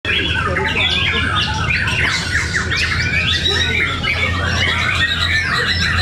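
Many caged white-rumped shamas (murai batu) singing at once: a dense, unbroken tangle of overlapping whistled phrases and quick rising and falling notes, over a steady low hum.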